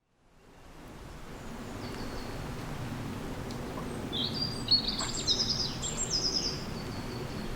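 Outdoor ambience fading in from silence: a steady low rumble of background noise, with a small bird chirping in quick high phrases from about four to seven seconds in.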